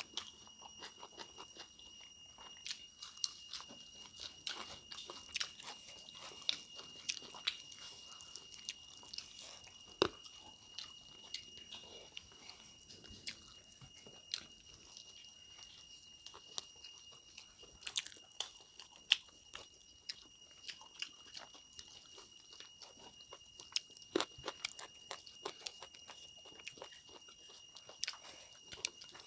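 Close-miked chewing and biting of smoked duck meat eaten by hand, with scattered crunches and mouth clicks. A faint steady high-pitched whine sits under it.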